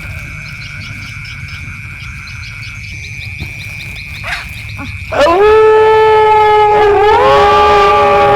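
Wolves howling: about five seconds in a loud howl swoops up and holds a long, level note, and a second howl rises in beside it about two seconds later. Before that, only a low rumble of night ambience with a steady high tone and faint chirps.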